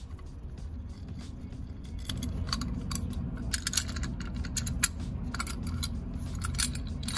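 Light metallic clinks and clicks of the cast-aluminium water pump and oil pump housings of a Yamaha R1 being handled and pulled apart by hand. The clicks are scattered, and they come thick and sharp from about two seconds in. A steady low hum runs underneath.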